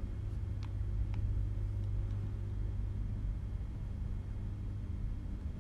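Steady low hum, with two faint clicks about half a second and a second in as a ribbon-cable connector is pushed into the 3D printer's extruder board.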